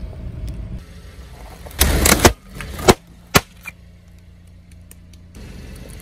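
A car tyre rolling over and crushing objects on asphalt: a loud crunching burst about two seconds in, then two sharp cracks about half a second apart, with the car's engine running low underneath.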